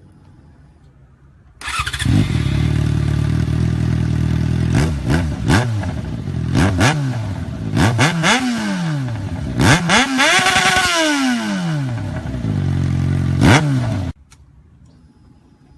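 Kawasaki Z1000 inline-four motorcycle engine with an Akrapovič exhaust, idling and being blipped. It gives a series of quick throttle revs and one longer rev about ten seconds in. The sound comes in suddenly about a second and a half in and cuts off abruptly near the end.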